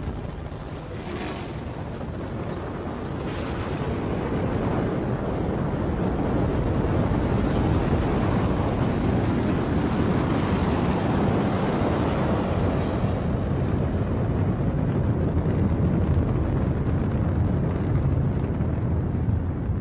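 Rocket launch: a sudden start, then a deep rushing rumble that builds over the first several seconds and holds steady.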